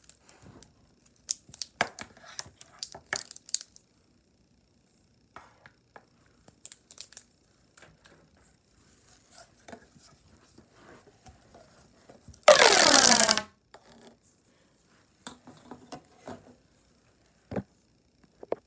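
Fidget toys being handled: scattered small clicks, taps and crinkles, then one loud ripping sound about a second long, roughly twelve seconds in.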